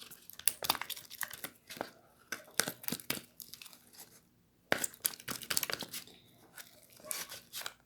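Freshly activated, still-sticky slime being worked by hand: a run of irregular wet clicks and crackles as it is squeezed and pulled apart.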